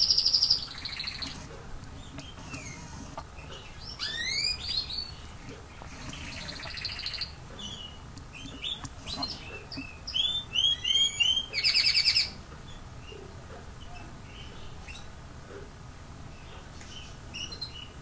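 Small garden birds chirping and calling in scattered bursts of high notes, some sweeping upward, with the busiest run of quick repeated notes about ten to twelve seconds in and only faint chirps after that.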